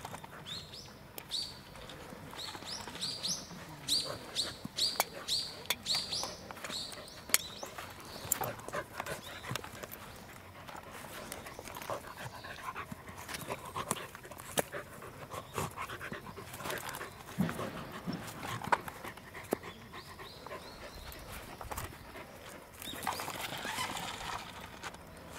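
A Welsh corgi panting and whimpering while walking on a leash, with scattered scuffs and clicks of steps on grass and dirt. A run of short, high, rising squeaks repeats quickly through the first seven seconds or so.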